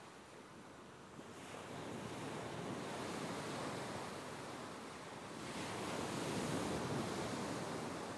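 Ocean surf washing onto a sandy beach: a steady hiss of water that swells about a second in, eases off, then builds into a larger wave around six seconds in.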